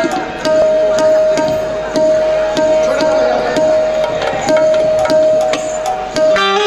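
Ghazal accompaniment: tabla playing a quick run of strokes under one long held note. A plucked-string melody comes back near the end.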